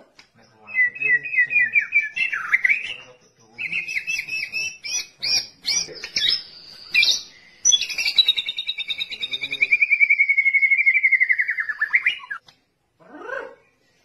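White-rumped shama (murai batu) singing: fast trilled phrases, a varied run of sharp notes, then a long rapid trill that slides slowly down in pitch and breaks off about twelve seconds in, followed by one short rising note.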